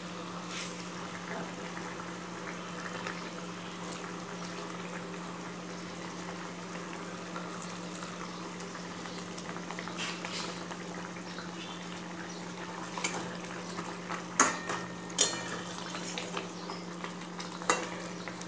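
Curry gravy bubbling in a pan on the stove, with a steady low hum underneath. A metal spoon clinks and knocks against the pan several times in the second half, loudest about fourteen seconds in.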